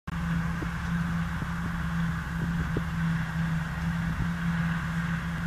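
Tractor engine running at a steady speed, a constant even drone with no change in pitch.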